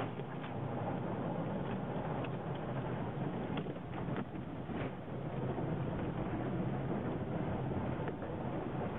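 Car wash equipment running: a steady rushing noise with a few faint clicks.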